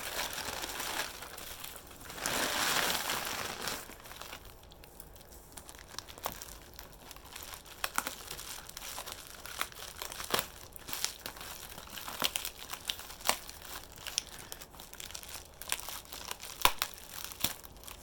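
Wrapping and packing tape crinkling and tearing as a taped-up item is unwrapped by hand: a rustling burst about two seconds in, then many scattered sharp crackles and snaps.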